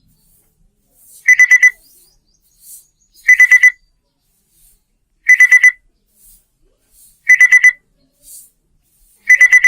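Built-in alarm of a Walton PS05 Bluetooth speaker going off at its set time: groups of four quick, high beeps, one group about every two seconds.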